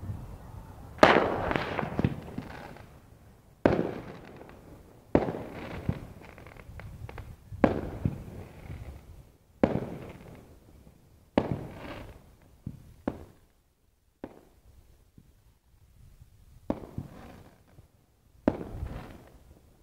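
Consumer aerial fireworks going off: about ten sharp bangs, one every one to three seconds, each followed by a fading crackle.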